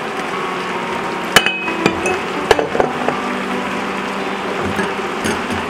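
Wooden spatula knocking against a bowl and a stainless steel pan while Chinese celery is stir-fried, about five sharp knocks in the first three seconds, the loudest about a second and a half in, over a steady hiss.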